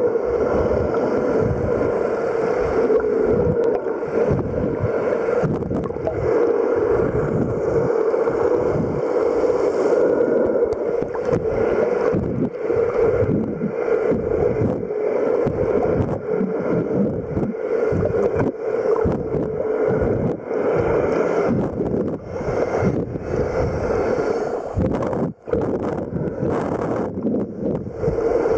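Muffled underwater water noise heard through a camera's waterproof housing: a steady droning hum under irregular low rumbling and sloshing as the swimmer moves, with one brief dropout near the end.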